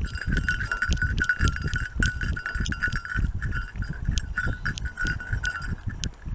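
Rumble and quick, repeated thumps from a camera strapped to a running Doberman, jolted with each stride, with a steady high ringing jingle and small clicks over it.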